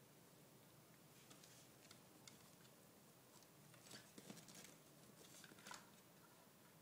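Near silence, with faint scratches and rustles of kittens clambering on a cloth laundry basket, a small cluster of them about four seconds in.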